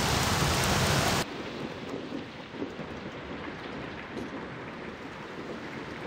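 Rain falling steadily, loud at first, then cutting down suddenly about a second in to a softer, even hiss.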